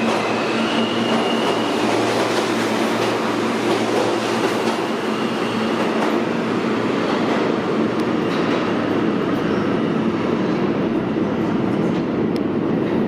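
R160-series New York subway train running on the station track, its wheels rumbling and clacking over the rails. In the first two seconds the propulsion motors whine and step up slightly in pitch, then the whine fades under the rumble.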